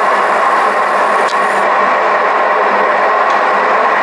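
South Bend 16 x 60 engine lathe running steadily with its carriage on power feed, with a faint click now and then.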